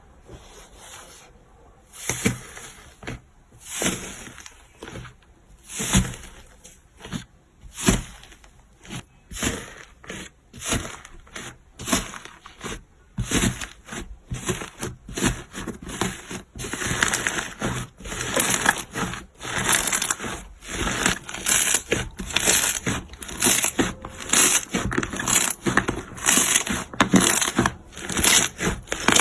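Slime being squeezed and pressed by hand in repeated short strokes, about one a second at first and quicker, about two a second, from about halfway through.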